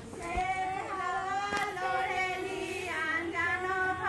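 Women singing a folk song together in slow, drawn-out lines, with one short click about a second and a half in.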